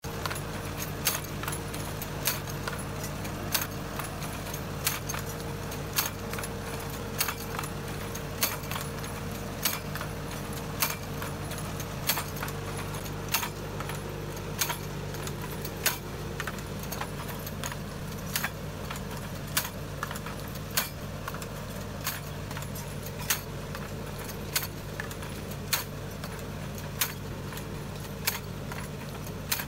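Tractor running steadily while working a tractor-mounted automatic under-vine hoe through the soil, with a sharp click about every 1.2 seconds over the engine hum.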